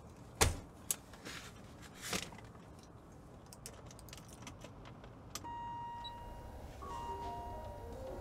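A suitcase set down with a thump on a car seat, then small clicks and a jangle of keys at the dashboard. About five seconds in a steady high tone starts, and near the end a melody of short, stepping high notes begins over it.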